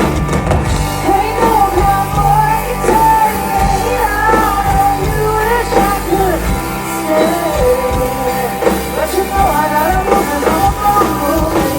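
Live country-rock band playing an instrumental break: a wavering lead melody over bass and drums.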